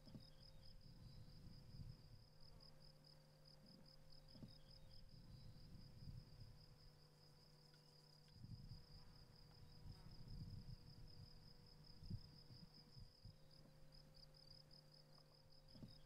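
Near silence, with a faint high trill pulsing rapidly and evenly throughout over a low hum.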